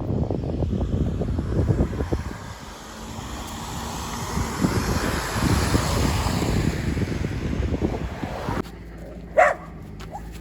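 A car passing on the road, its noise swelling and fading over several seconds, with wind buffeting the microphone. Near the end the sound cuts off abruptly, and a brief high call follows.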